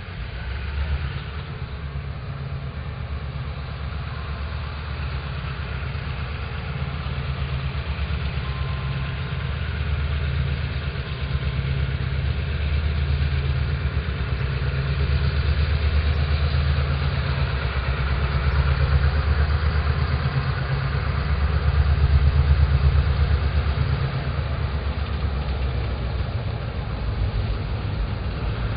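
Diesel locomotive engine running as the freight train approaches, a low steady rumble that grows slowly louder.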